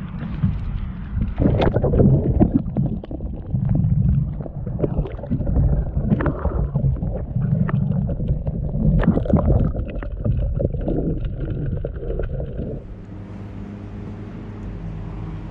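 Water sloshing and gurgling against a camera held at and under the waterline as a flathead is released from a fish grip, with many small knocks and splashes. About 13 seconds in, this gives way to a calmer, steady low drone.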